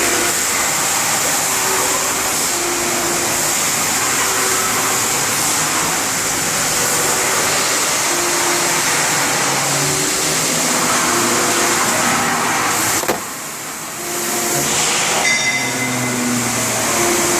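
Steady machine whir with a strong hiss, running at a constant level, with a brief sharp dip about thirteen seconds in before it picks up again.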